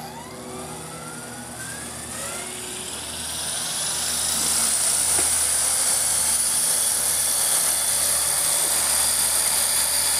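Esky Honey Bee CP2 electric RC helicopter spooling up: the motor and rotor whine rises in pitch and grows louder over the first four seconds or so, then holds at a steady high whine with rotor hiss.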